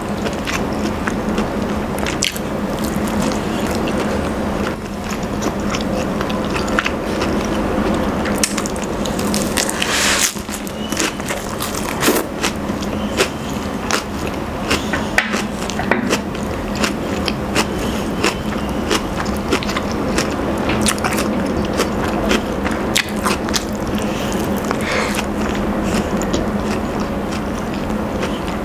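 Close-miked chewing of rotisserie chicken, with frequent wet mouth clicks and smacks over a steady low hum.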